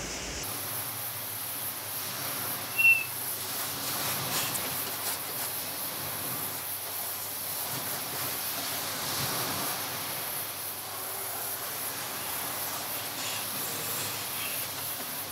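Foam brush dragging and dabbing red paint across a canvas, faint under a steady hiss, with one brief high squeak about three seconds in.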